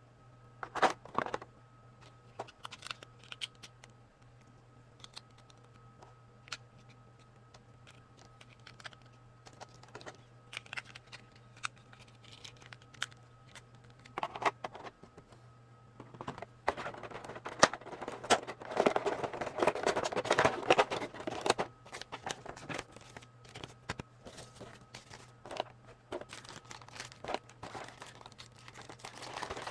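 Packaging crinkling and rustling as it is handled, with scattered clicks and taps; the handling is busiest for a few seconds a little past the middle.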